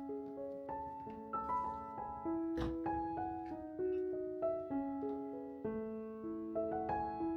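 Soft background piano music: a slow, gentle line of notes and chords ringing out one after another.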